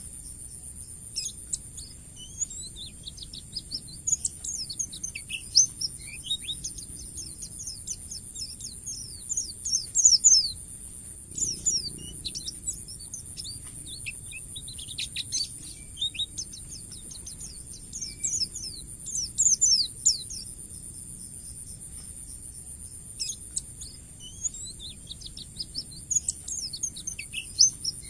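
White-eye (pleci, Zosterops) singing a fast, high 'ngalas' song: bursts of rapid chirps and trills with short pauses between them. A steady high-pitched whine runs underneath.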